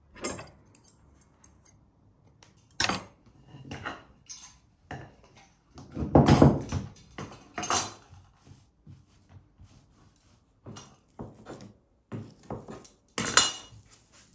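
Dough being handled on a wooden board with kitchen utensils: a series of separate knocks and clatters, the loudest and longest about six seconds in, with a cluster of quicker ones near the end.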